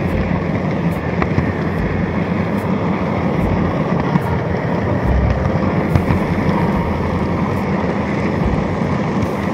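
N-gauge model train running on its track, heard from a camera riding on the train: a steady rolling rumble of wheels and motor, with faint ticks coming regularly.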